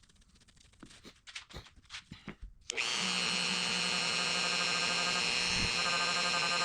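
A few light handling clicks and knocks, then a little under three seconds in a Dremel rotary tool switches on and runs steadily at high speed with an even whine, used with polishing compound on the plastic screen cover of a phone case.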